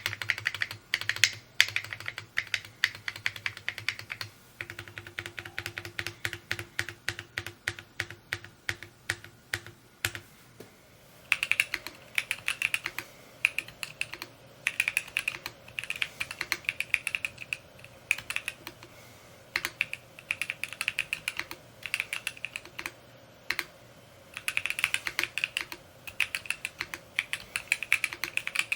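Fast, continuous typing on a Mode Encore 2 mechanical keyboard, the keystrokes clacking in quick runs. About ten seconds in there is a short break, after which the keystrokes sound different, as if from another switch, keycap or mounting setup.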